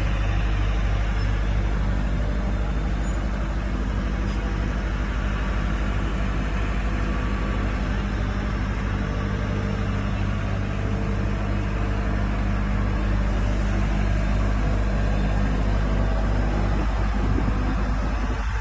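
Crawler pile-driving rig's Cummins diesel engine running steadily, low and even, without clear hammer strokes.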